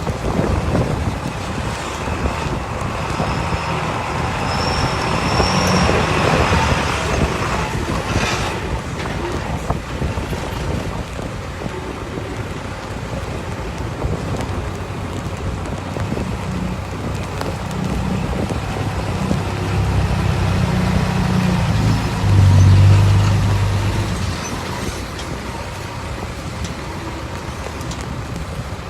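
Dump truck diesel engines running amid road traffic noise, the engine note swelling to its loudest about two-thirds of the way through. A brief high squeal comes about five seconds in.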